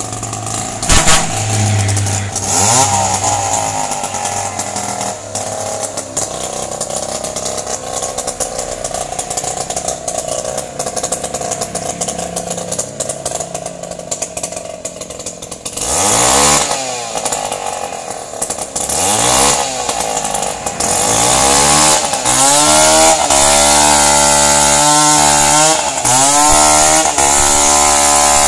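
Two-stroke chainsaw running at a rough idle, then revved up and down several times about two thirds of the way in. It is then held steadily at high revs, louder, through the last part.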